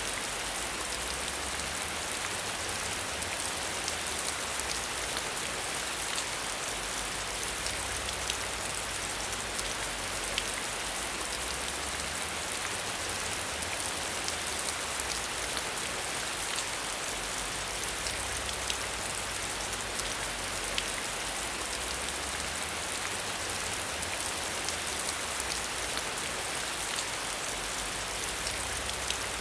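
Steady rain: an even hiss dotted with many sharp ticks of single drops, over a faint, wavering low rumble.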